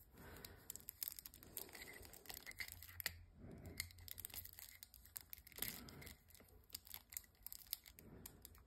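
Faint crinkling and tearing of a clear plastic wrapper being picked at and peeled off a sealed stack of trading cards, with small crackles scattered throughout.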